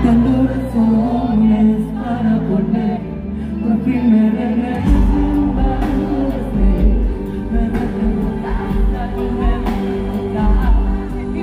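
Live pop concert music: a woman singing into a microphone over the band. A heavy bass comes in about five seconds in.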